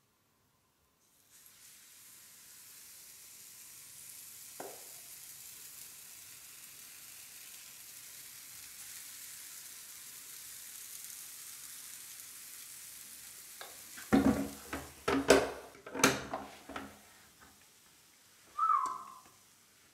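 Chocolate Oreo waffle batter sizzling on the hot plates of a Krups waffle iron, a steady hiss that starts about a second in. Late on comes a cluster of loud knocks and clatter, then a brief squeak.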